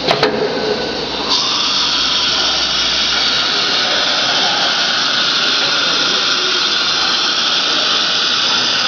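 CNC router with automatic tool change running on MDF: a steady high-pitched whine and hiss of the spindle. There is a click just after the start, and the high hiss grows louder about a second and a half in.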